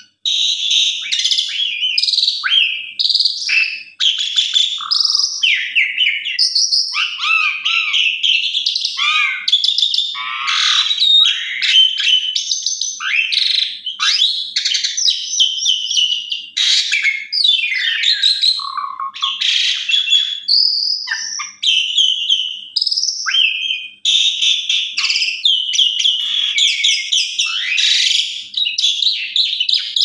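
Asian pied starling (jalak suren) singing a long, fast, varied song of chattering phrases, whistles and notes that rise and fall, with only two brief breaks.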